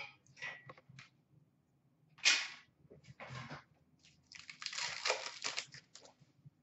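Trading cards being handled by hand: a sharp rustle about two seconds in, a softer one a second later, then a longer crackling rustle of about a second and a half.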